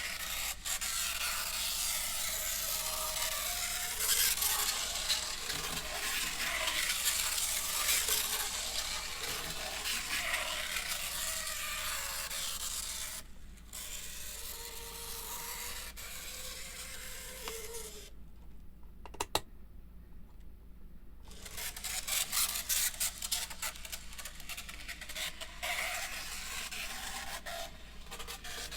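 N-gauge model train motor car running with a harsh scraping, rasping noise from its motor, an abnormal noise that has persisted after the motor was cleaned and its old grease replaced. The noise cuts out for a few seconds about two-thirds of the way through, with a single click, then starts again with a rapid crackle of clicks.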